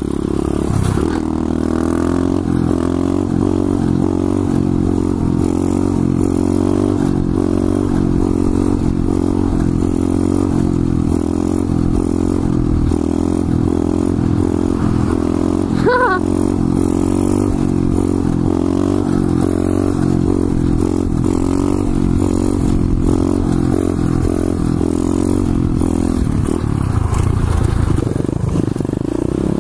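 Pit bike engine running at a steady cruising pitch while riding, heard close up, with a brief high chirp about halfway through; the engine note changes near the end.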